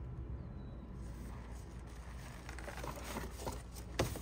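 Faint rustling and light knocks of a cardboard box and its dividers as the pole saw's cutting head is lifted out, with a sharper knock near the end, over a steady low background hum.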